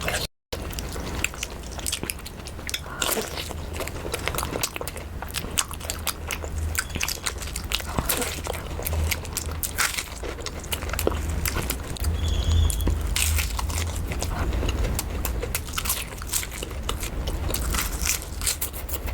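Close-miked eating sounds: irregular biting and chewing with many small clicks and crunches from the mouth, over a low steady rumble. The sound drops out for a moment just after the start.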